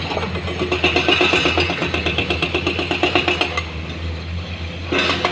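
Heavy diesel engine of earthmoving machinery running with a rapid even pulse, about nine beats a second, and a higher whine over it for a couple of seconds; the pulse fades about three and a half seconds in.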